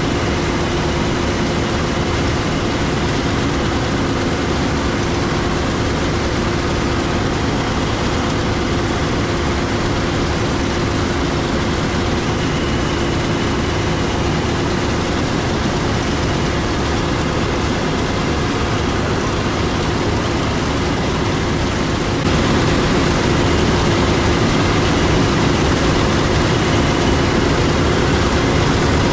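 Heavy harvest machinery running steadily: a constant engine drone with a steady hum over it. About two-thirds of the way in, the sound steps up a little louder.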